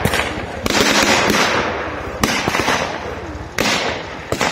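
Gunfire with blank cartridges in a mock battle: five or six single loud shots at irregular intervals, each trailing off in a long echo.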